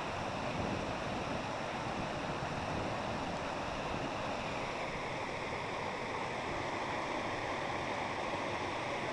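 Hot-spring stream water rushing and splashing over a small rock cascade into a pool, a steady, unbroken rush.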